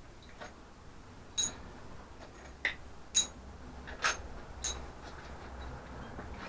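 Light metallic clinks and taps, about five spaced over a few seconds, each with a brief ring: metal tools and engine parts being handled during an engine strip-down.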